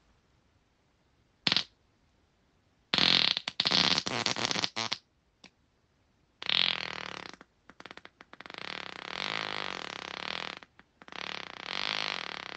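Human farts in a series: a short one about one and a half seconds in, a loud sputtering one lasting about two seconds from about three seconds in, then long drawn-out ones from about six seconds on, broken by a short pause near eleven seconds.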